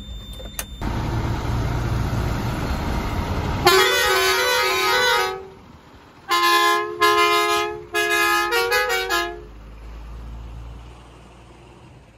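A truck's multi-note air horn honks, stepping between two pitches. First comes one long blast of about a second and a half, then after a short pause three blasts and a quick run of short toots. Before the horn there is a loud rush of noise, and a low engine rumble follows it.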